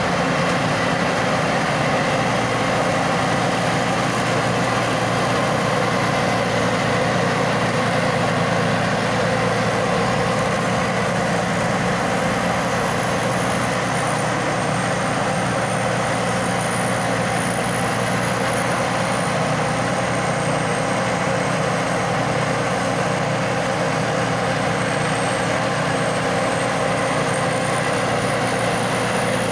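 Tracked rice combine harvester running steadily, its engine and threshing machinery working together at an even pitch, with a faint high whine that drifts slowly up and down.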